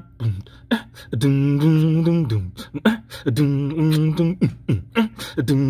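A man beatboxing a groove with his mouth, sharp percussive clicks between three long hummed bass notes, to demonstrate a song idea's beat.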